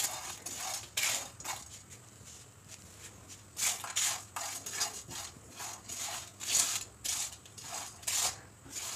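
Whole spices being dry-roasted in a nonstick frying pan and stirred with a silicone spatula: irregular rustling, scraping strokes as the seeds, peppercorns and pods slide and rattle across the bare pan, some strokes louder than others.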